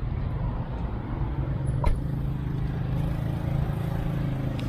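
Steady low hum of a car, with a sharp click about two seconds in and a fainter click near the end.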